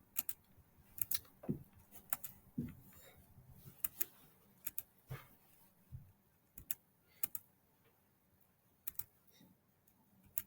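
Faint, irregular computer clicks from a mouse and keyboard, single or in quick pairs, with gaps of up to about a second and a half between them.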